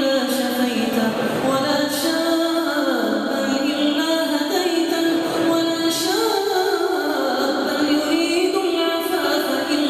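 Melodic vocal chanting, one continuous line of long held notes sliding up and down in ornamented glides, with no breaks.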